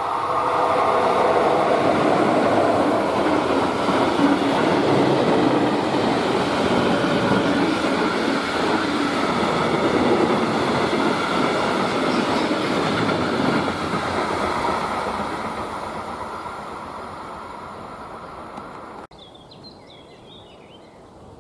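A freight train passing at speed, its wheels rumbling on the rails. The sound fades as the train goes by and then cuts off abruptly near the end.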